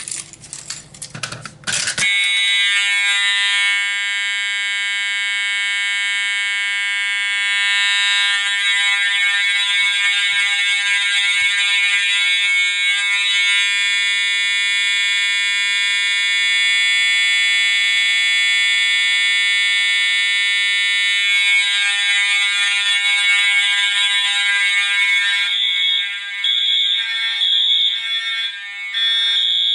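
A few sharp clicks and rattles, then about two seconds in the fire alarm horns start: a Wheelock MT horn set to code 3 and an Edwards device sound together in a loud, steady blare of many tones. Near the end the blare breaks into a rapid on-off pulsing.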